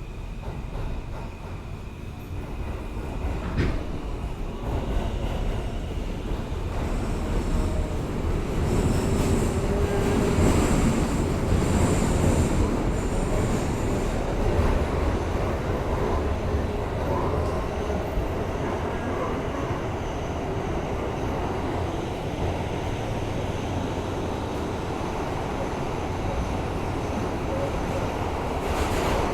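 Inside a moving R160A-2 New York subway car: steady rumble and rattle of the train running on the rails, growing louder over the first several seconds as it picks up speed. A faint high-pitched wheel squeal comes in for several seconds near the start.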